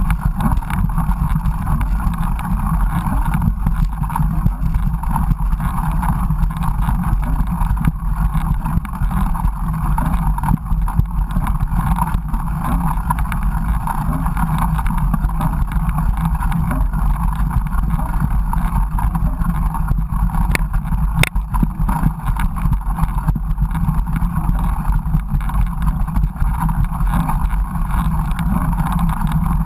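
Steady wind rumble and rolling trail noise on a GoPro's microphone while riding a mountain bike, with a couple of sharp clicks a little past two-thirds of the way through.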